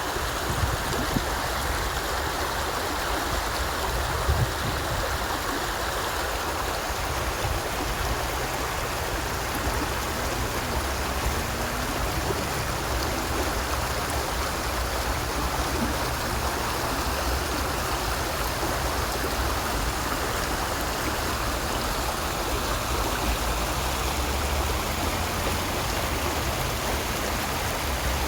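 A stream flowing: a steady, unbroken rush of running water.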